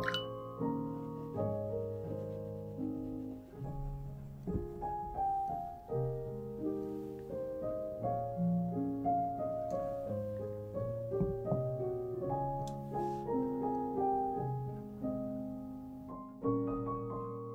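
Background piano music: a melody of struck notes over held chords, each note fading after it is played.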